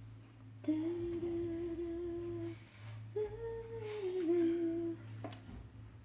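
A woman humming a slow tune with her mouth closed: two long held notes, the second starting higher and sliding down partway through. A steady low electrical hum runs underneath.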